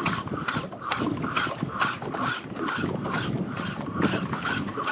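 Fishing reel being cranked at a steady pace, giving a regular ticking whir about twice a second.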